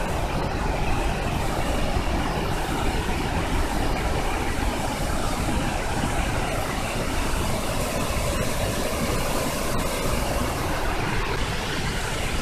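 Zongo Falls, a large waterfall in flood, heard from close by: a loud, steady rush of falling water with a deep rumble underneath.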